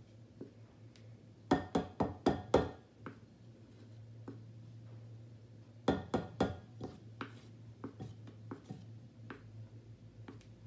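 Metal spoon scooping flour and knocking against a measuring cup and flour canister: a quick run of about five clinks and knocks a second and a half in, another cluster around six seconds, then lighter scattered taps, over a low steady hum.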